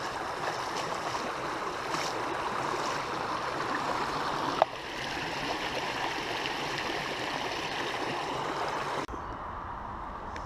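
Creek water rushing steadily over a small, partly broken-down dam. A single sharp click comes about halfway through, and near the end the sound changes abruptly to a quieter, deeper rumble.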